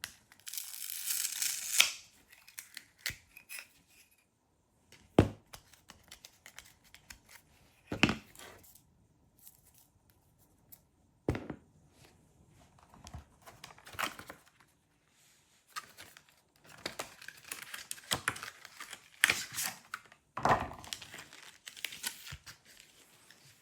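Adhesive tape tearing and crackling as the old battery is pried and peeled free of the Google Nest Doorbell's housing, in irregular stretches, with several separate sharp knocks of the tool and parts.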